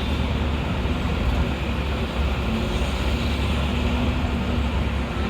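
Busy city street traffic: a steady low rumble of vehicle engines close by, over general street noise.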